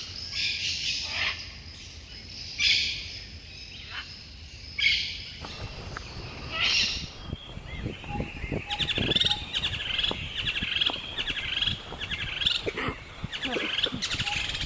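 Birds chirping: separate short, high chirps for the first few seconds, then, after a change in the background about five seconds in, a fast, continuous warbling chatter.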